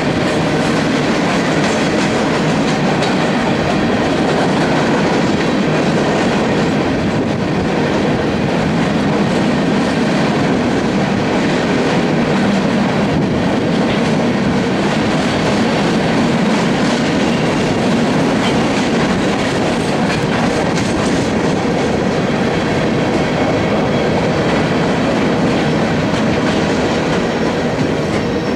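Empty coal hopper cars of a freight train rolling past, a steady loud rumble and clatter of steel wheels on the rails.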